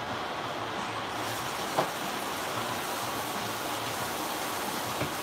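Kitchen sink faucet running, a steady rush of water that grows brighter about a second in, with a light knock about two seconds in and another near the end.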